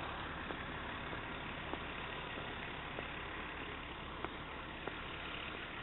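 An engine idling steadily, a constant low hum with no change in speed, with a few faint ticks scattered through it.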